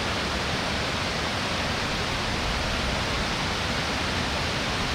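Steady rushing of a mountain stream, an even hiss that does not change.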